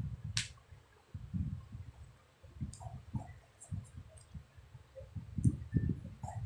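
Irregular soft thumps and rustling from hands and clothing moving during sign language, close to the phone's microphone, with one sharp click about half a second in.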